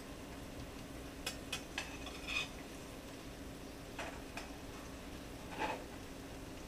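A cooking utensil tapping and scraping against a frying pan of flounder fillets: a handful of sharp clicks and knocks, loudest about two and a half seconds in and again near six seconds, over a steady low hum.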